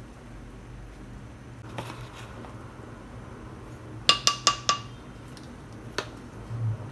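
Scoop tapped four times in quick succession against a ceramic bowl, each a short ringing clink, knocking off brown sugar; one more sharp tap comes about a second later.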